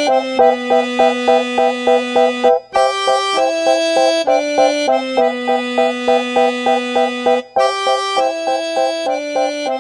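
Background music: sustained keyboard-like notes over held bass notes and a pulsing chord pattern of about three chords a second. Two brief breaks come about three seconds in and near the end.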